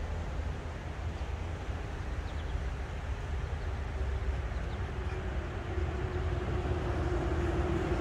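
A steady low rumble from a distant engine, with a single steady hum that comes in about halfway through and grows louder.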